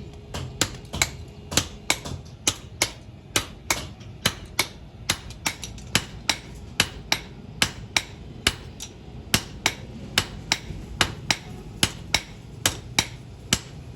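Hand hammer striking hot steel on an anvil, forging an axe from truck leaf-spring steel: sharp ringing blows at a steady pace of about two to three a second, some louder than others.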